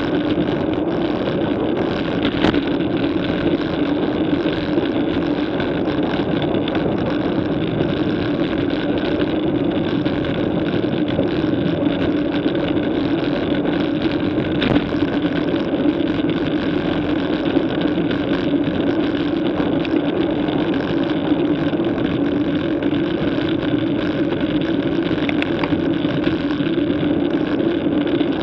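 Steady wind and road noise on a bicycle-mounted camera as the bike rolls along a road at about 30 km/h: an even, unbroken drone with a low hum running through it.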